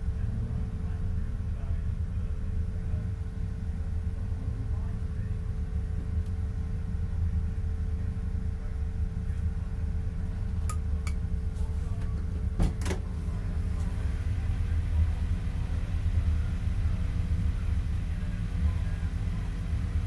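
BMW Compact race car's engine idling steadily while the car sits almost stationary. A few sharp clicks come about halfway through.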